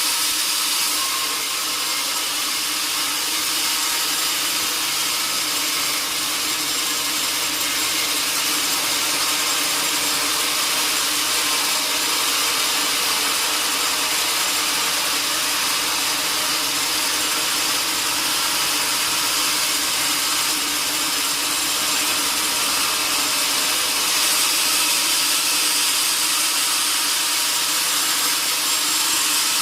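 Sawmill saw cutting steadily through a large hardwood log: a continuous, even, high-pitched rushing noise.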